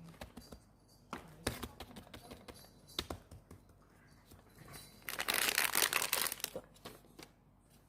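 Crinkling and rustling of things being handled, with scattered clicks and taps, and a louder, longer burst of crinkling about five seconds in that lasts over a second.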